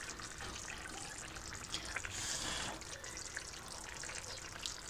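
Chicken livers simmering in sour cream sauce in a frying pan: a steady soft bubbling and crackle, with a brief louder hiss about two seconds in.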